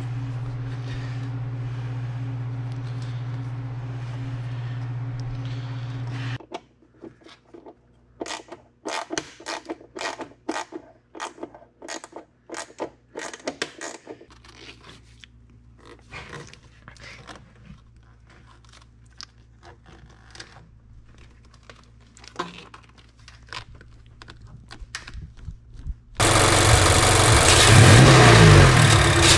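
A steady low hum for about six seconds, then irregular clicks and scrapes of a flat-head screwdriver and a 10 mm ratchet tightening the hose clamps on an aftermarket AEM cold air intake. Near the end the Mazda 3's 2.5-litre four-cylinder engine revs loudly through its stock air box.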